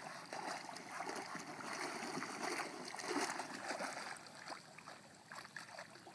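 Water splashing and sloshing as a springer spaniel swims and then wades through shallow water, with many small irregular splashes. It gets quieter over the last couple of seconds.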